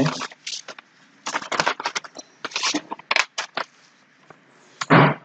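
Rustling and crackling handling noise: a string of quick, uneven bursts, then one short louder burst near the end.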